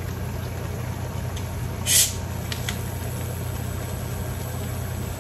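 A short, sharp hiss about two seconds in, the fizz of a bottle of Coke being opened, followed by a couple of faint ticks, over a steady low hum.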